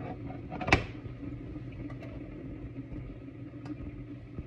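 A metal ladle clinks once, sharply, against a ceramic-coated frying pan about three-quarters of a second in, with a few fainter ticks later, over a steady low kitchen hum.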